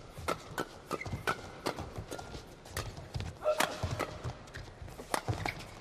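Men's doubles badminton rally: rackets strike the shuttlecock in a quick run of sharp hits. Shoes squeak briefly and feet thud on the court between the strokes.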